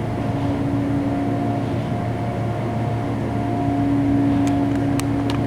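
Passenger elevator car running between floors: a steady low motor hum with a constant whine over it, and a few faint clicks near the end.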